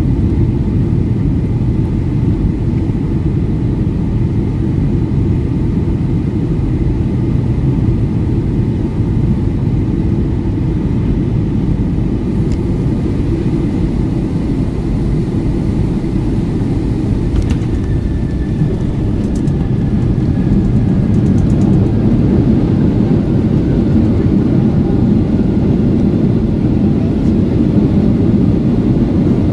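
Cabin noise inside a Boeing 757-300 landing: a steady low rumble of engines and airflow on short final, growing louder in the second half as the jet touches down and rolls out on the runway with its spoilers raised.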